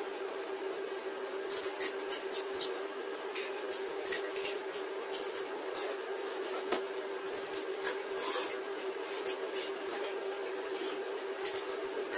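Crisp puchka (pani puri) shells cracking and crunching as they are poked open with fingers and chewed, a run of short scratchy clicks over a steady hum.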